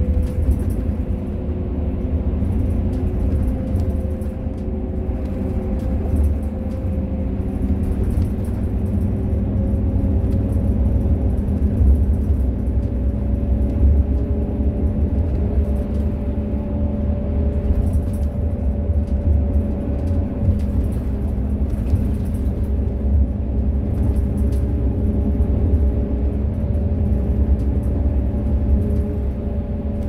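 Interior of an intercity seated bus at highway speed: a steady low engine and road rumble with a whine that climbs slightly in pitch over the first half and then holds, and light rattling from the cabin fittings.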